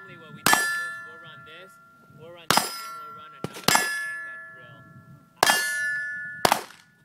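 Five handgun shots, each answered at once by a steel target plate ringing with a clear metallic tone that dies away over a second or so. The hits are irregularly spaced, about one to two seconds apart.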